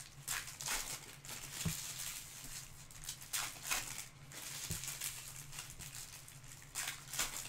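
Stack of chrome trading cards slid and flipped one by one in the hands: a series of irregular dry swishes and light flicks. A faint steady low hum sits beneath.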